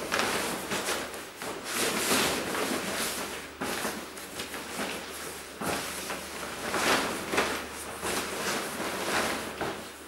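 Belongings being handled and packed into a box: irregular rustling and scraping, with a few light knocks.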